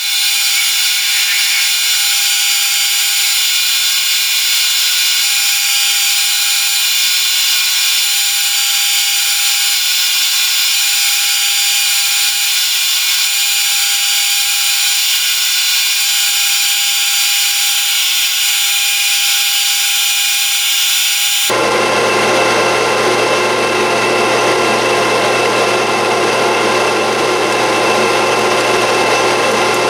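Metal lathe running steadily while cutting a small steel part, with a whine of several steady high tones. About two-thirds through, the sound changes suddenly and gains a lower, rougher tone.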